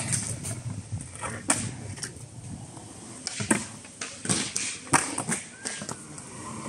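Skateboard wheels rolling over concrete, then the board grinding along a concrete ledge during a trick. Sharp clacks of the board recur through the rest.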